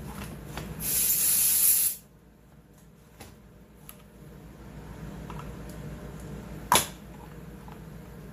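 A short burst of spray hissing for about a second, then small workbench handling noises with one sharp click near the end.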